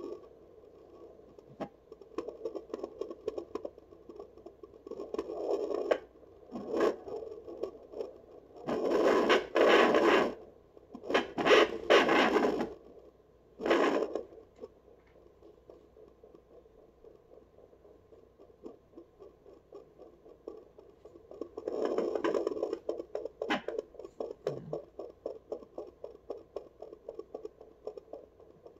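A fetal doppler's speaker picking up an unborn puppy's heartbeat inside the pregnant dog, a fast pulse at about three beats a second. Loud scraping from the probe rubbing over the belly and fur breaks in between about nine and fourteen seconds in, and again around twenty-two seconds in.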